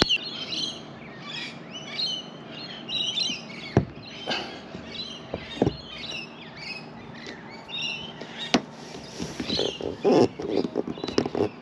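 Birds chirping and calling, many short overlapping chirps, with a few sharp knocks in between.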